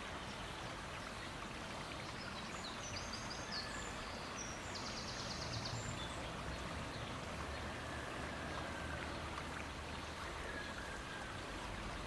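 Steady outdoor background hiss with faint, high-pitched calls of small songbirds: a few quick chirps about three seconds in, a short fast trill around five seconds, and thin, faint whistles later on.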